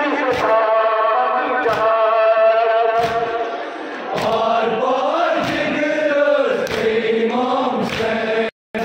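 A group of men chanting a Muharram mourning lament (nauha) in unison, punctuated roughly once a second by the sharp slaps of their palms striking their chests (matam). Near the end the sound cuts out completely for a moment.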